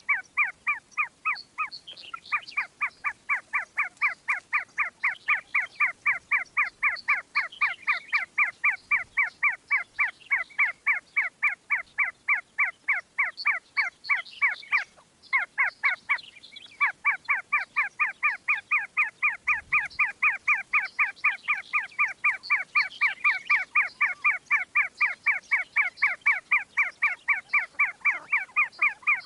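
Chukar partridge calling in a fast, even series of short chuk notes, about five a second, with two brief pauses.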